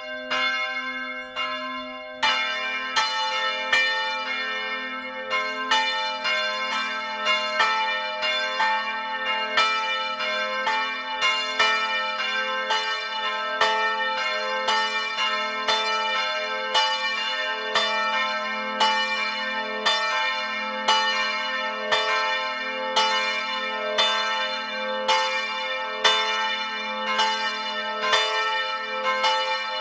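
Swinging church bells ringing, heard close up inside the belfry, each clapper strike ringing on. At first one bell strikes steadily. About two seconds in, a second, lower bell joins, and the two bells' strikes interleave from then on.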